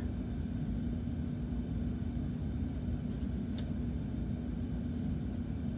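Steady low background rumble with a faint hum, and a few faint short clicks as a marker draws lines on small craft pieces.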